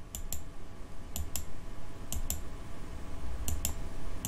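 Computer mouse clicking four times about a second apart, each a quick press-and-release double click, stepping a chart's bar replay forward one candle at a time.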